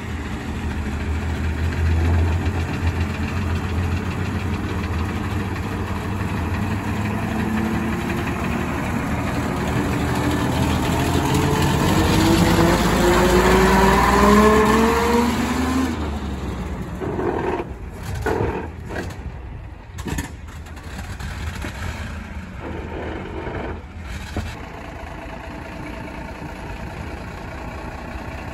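Vintage coach's engine pulling past at close range while accelerating, its pitch climbing steadily for several seconds and loudest as it goes by. The sound then falls away to a quieter engine running.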